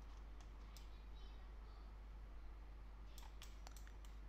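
Faint clicking at a computer: a couple of clicks in the first second and a quick run of several about three seconds in, over a low steady hum.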